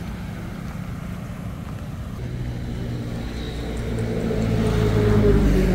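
Engine running with a steady low hum, growing louder over a few seconds and peaking near the end.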